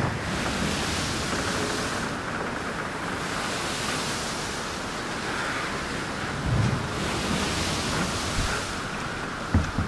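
Wind rushing across the microphone over open river water, swelling and easing every couple of seconds, with a few low thumps of wind buffeting.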